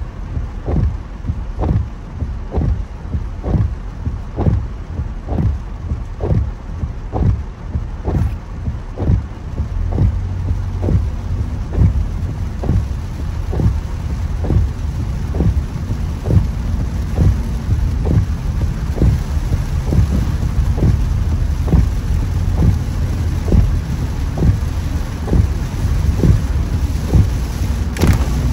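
Heavy rain drumming on a moving car with tyres running through water on a flooded road, heard from inside, and a regular thump about every two-thirds of a second from the windscreen wipers sweeping. The rush of water gets louder about ten seconds in.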